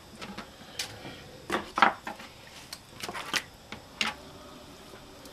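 Metal kitchen tongs clicking and clattering against a foil-lined metal baking pan as pieces of spare rib are shifted, several separate short clatters, the loudest a little under two seconds in.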